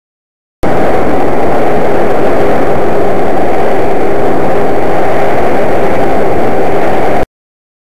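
Twin front-mounted motors and propellers of a homemade RC plane in flight, heard from an onboard camera: a loud, steady drone with a constant hum under a rush of noise, overloading the small microphone. It starts and stops abruptly.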